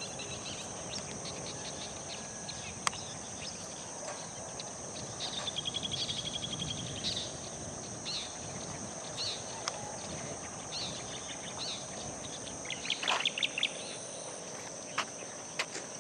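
Rural outdoor ambience: a steady, high-pitched insect chorus, with birds chirping over it, a rapid trill about five to seven seconds in and a cluster of calls near the end, plus a few sharp clicks.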